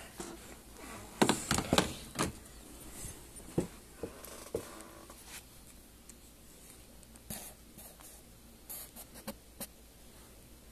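Handling noise from a handheld label maker being worked by hand: irregular clicks, taps and rustles, with a quick cluster of sharper clicks about a second in and scattered lighter taps after.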